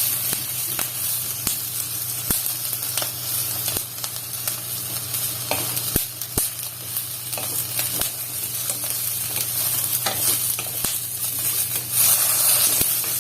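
Red chilli peppers sautéing in hot oil in a pan: steady sizzling with scattered sharp pops. The popping is from moisture in the chillies, which the cook puts down to rainy-season water.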